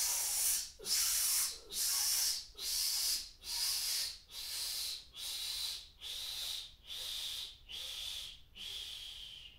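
A man's stepped cleansing exhalation in yoga breathing: about a dozen short hissing puffs of breath forced out against resistance through narrowed lips, roughly one every three-quarters of a second. The puffs grow gradually fainter as the breath runs out.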